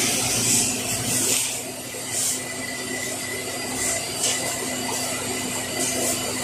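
Thin plastic bag rustling and crinkling in short bursts as it is opened and handled, over a steady background hum.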